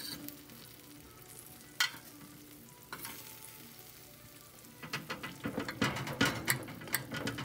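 Metal fork clicking and scraping against a glass baking dish as it works into baked jerk salmon in sauce: two single clicks, then a dense run of clicks and scrapes from about five seconds in.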